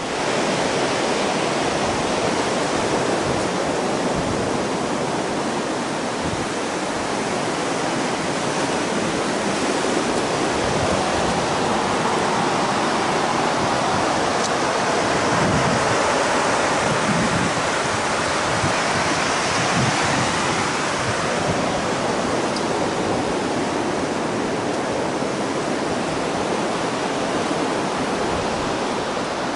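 Steady rushing of ocean surf on a beach, swelling a little midway.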